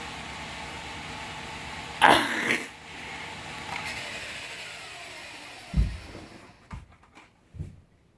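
A small electric motor whirs steadily, then winds down with a falling pitch. About two seconds in there is a short, loud burst of noise, and a few dull thumps follow near the end.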